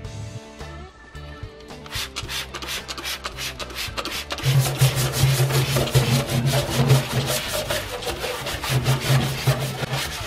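Hand scrub brush scrubbing the bare steel floor pan with cleaner-degreaser in quick back-and-forth strokes. The strokes get louder about halfway through, over background music.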